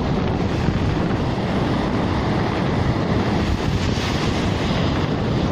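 Ocean surf washing in at the shoreline, with wind buffeting the microphone as a steady low rumble.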